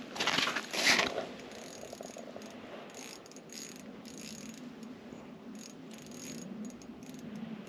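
Small spinning reel on an ice-fishing rod being cranked in, a mechanical ticking whir. It is loudest for about the first second, then carries on faintly.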